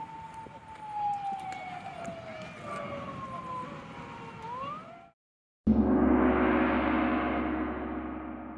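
Edited-in sound effects: a pair of tones glides slowly downward for about four seconds and ends in a short upward flick. After half a second of silence, a loud struck crash rings out and slowly fades.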